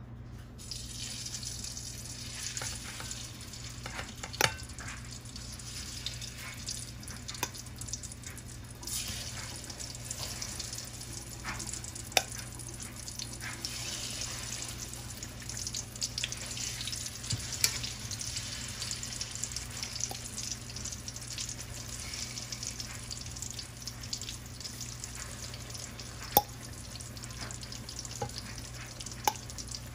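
Banana halves frying in hot oil in a metal wok, a steady sizzling hiss that starts as the pieces go in. About five sharp clinks of a metal fork against the wok stand out as the pieces are turned.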